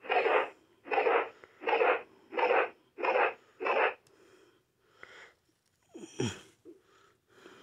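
Power Rangers Cosmic Fury morpher toy sounding from its small speaker as its button is pressed: six short, evenly spaced electronic bursts, about one every 0.7 seconds, then a few fainter sounds.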